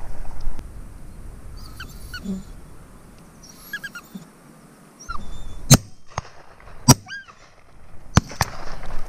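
Several shotgun shots in the second half, about a second apart, the first two the loudest. Birds give short, repeated calls in between.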